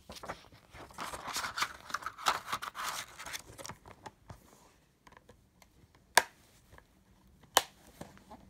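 Plastic DVD case and its paper insert being handled: a scratchy rustling and scraping for the first few seconds, then two sharp plastic clicks about six and seven and a half seconds in.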